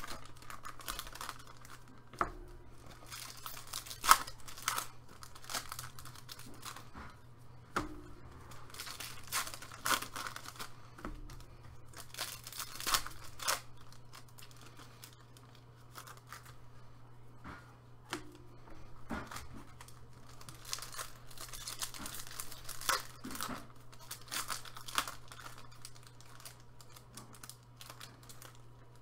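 Trading-card packs of Upper Deck hockey cards being ripped open one after another, the wrappers tearing and crinkling in irregular bursts.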